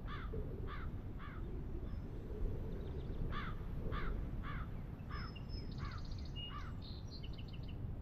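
A crow cawing: three harsh caws, a pause, then a run of six caws about half a second apart, over a steady low rumble. A few higher, thin chirps come near the end.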